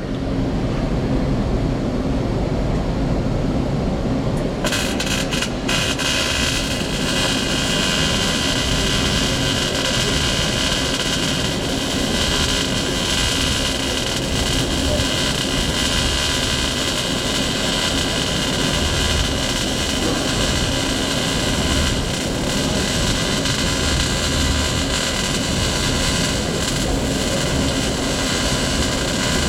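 MIG welder arc running continuously, a steady loud hiss that turns brighter about four and a half seconds in.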